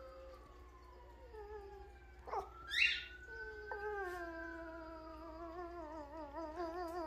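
Miniature pinscher howling along with a fire truck siren: a siren tone slides down in pitch at first, then the dog's long howl rises about halfway through and wavers up and down to the end.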